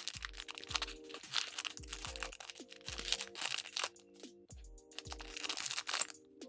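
Background music with a beat: held mid-range chords, deep bass notes that slide downward, and crisp high percussion.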